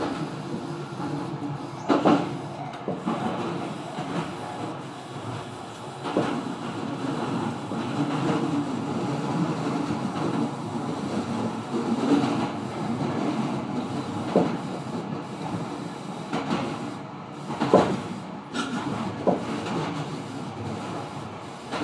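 Tobu 50000 series electric train running at speed, heard from inside the front car: a steady rumble with a few sharp knocks from the wheels over rail joints, the loudest near the end.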